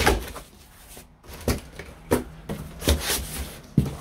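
A few short knocks and clatters of things being handled, about five over four seconds, the last near the end the sharpest.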